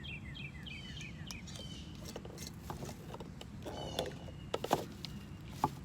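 An animal calling in a quick series of short, high, falling chirps, about five a second, then a few more high calls. Near the end come a few sharp clicks, which are the loudest sounds.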